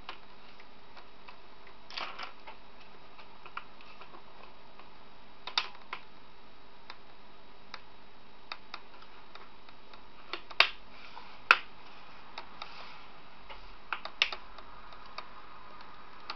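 Scattered sharp plastic clicks and snaps as the laptop's plastic screen bezel is pressed and handled on the lid, with the two loudest snaps coming close together near the middle.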